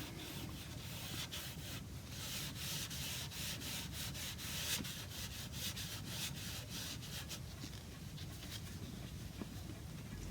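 A cloth damped with methylated spirits rubbed over a freshly dark-polished wooden chair stretcher in short, repeated strokes, wiping back the button polish to bring out highlights.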